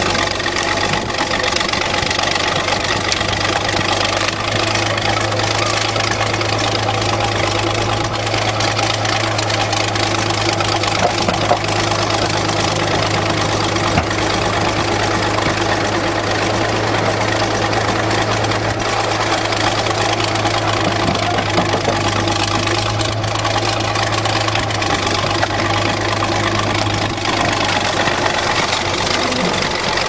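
An engine idling steadily at an even, unchanging speed.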